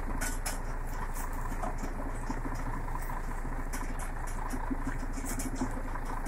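A tractor-driven baler running: a steady engine hum with irregular light clicks from the machinery.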